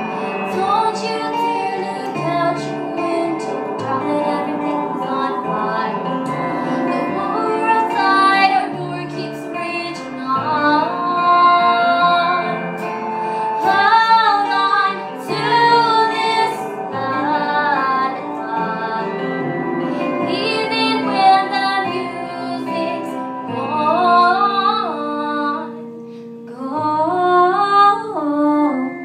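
Female voices singing a slow song over instrumental accompaniment.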